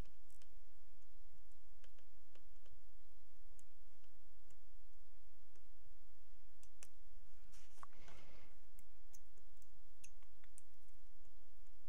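Faint scattered clicks and taps of scissors and a small plastic resin bottle being handled while the bottle's foil seal is cut open, with a brief rustle about eight seconds in, over a steady low hum.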